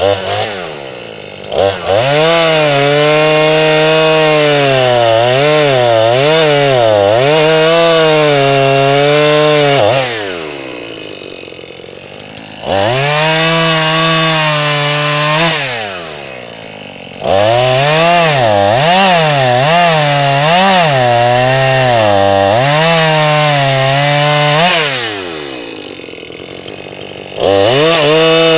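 Gasoline chainsaw bucking an oak log. It revs to full throttle four times, its pitch wavering and dipping as the chain cuts, and drops back to idle between cuts.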